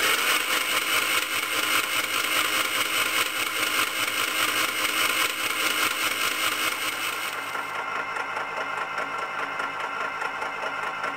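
A Mini's 1400cc A-series engine spun over on the starter motor with its spark plugs out, a fast, even pulsing churn, to build up oil pressure before a first start. The sound drops a little about seven and a half seconds in.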